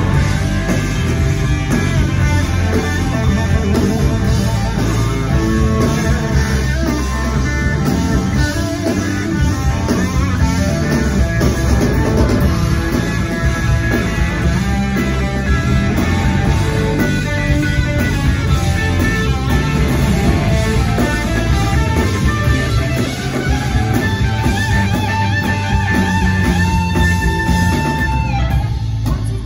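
Live blues-rock band playing an instrumental passage: a lead on a white SG-style electric guitar over drums and keyboards, with a long held note near the end.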